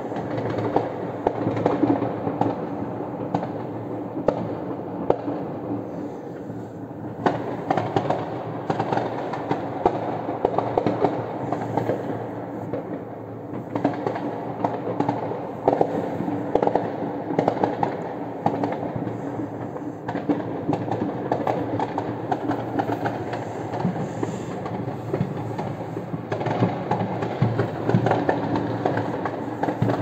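Many fireworks and firecrackers going off at once across the city: a dense, continuous crackle of pops with frequent louder bangs.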